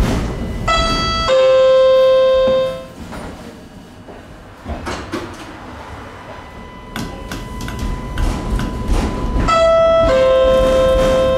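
A tram's onboard two-note electronic chime sounds twice, about nine seconds apart, each time a higher note followed by a longer, lower held note. The running tram rumbles underneath, quieter for a few seconds in between.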